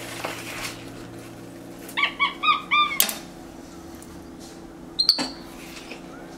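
Capuchin monkeys chirping: a quick run of about six short, high-pitched chirps about two seconds in, followed by a sharp click, and one brief sharp squeak near five seconds.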